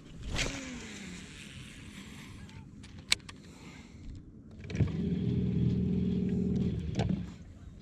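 A motor hums at a steady pitch for about two and a half seconds, starting past the middle and cutting off near the end. A sharp click comes about three seconds in.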